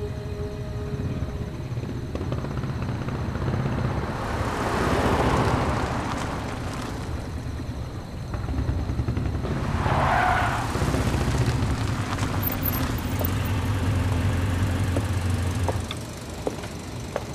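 Car engine running low and steady as a taxi drives up a quiet street, with tyre noise swelling about four to six seconds in and a short squeal about ten seconds in. The engine sound cuts off abruptly about sixteen seconds in, followed by a few light clicks.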